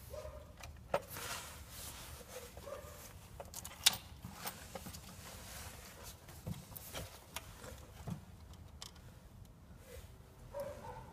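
Handling sounds of work under a car bonnet: scattered light clicks and knocks of a screwdriver and plastic engine-bay parts, with some rustling, and one sharper click about four seconds in.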